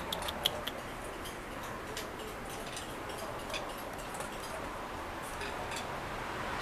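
Faint, irregular ticks and clicks over a steady background hiss.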